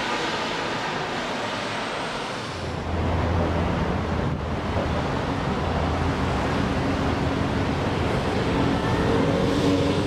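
Street traffic noise with wind rumbling on the microphone. It grows louder about two and a half seconds in, and a vehicle engine hum builds near the end.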